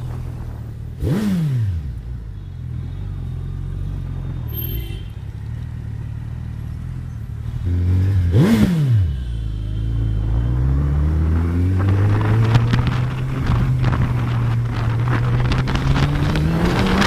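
Suzuki Hayabusa's inline-four with a Scorpion aftermarket exhaust idling, blipped twice with quick revs that shoot up and drop back within a second. It then pulls away, the engine note climbing gradually, while wind buffeting the microphone builds.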